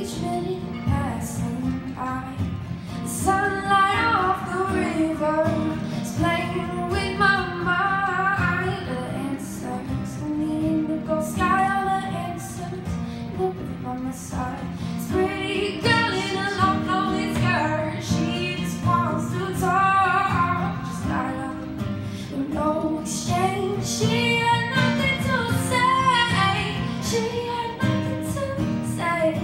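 A woman singing a song into a microphone while playing an acoustic guitar.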